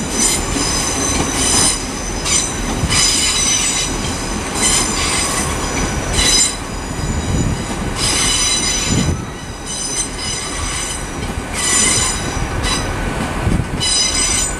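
Class 800 train running into the platform, with a high metallic squeal from its wheels and brakes coming and going every second or two over a low rumble.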